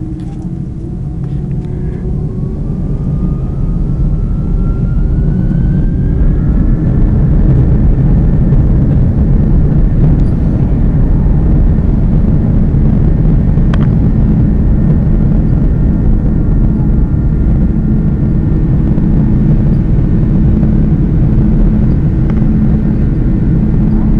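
Airbus A330 jet engines spooling up to takeoff thrust, heard from inside the cabin. A whine rises in pitch and the noise builds over the first several seconds, then settles into a loud, steady roar with a deep rumble through the takeoff roll.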